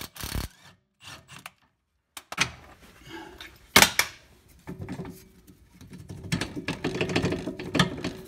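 Cordless impact wrench undoing the 14 mm lower mounting bolt of a Honda HR-V rear shock absorber: rapid hammering that stops about half a second in, a sharp metallic clack a little before the middle, then the wrench running again for the last few seconds with a steady whine and rapid clicking as the bolt is backed out.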